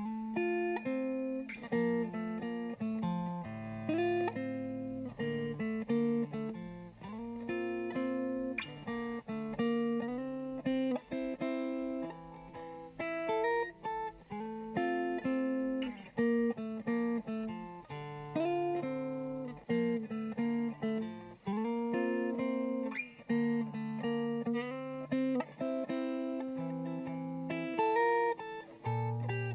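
Electric guitar through a P90 pickup, a Yamaha Revstar, played with a crunch tone: a picked and strummed chord progression with the notes ringing into each other.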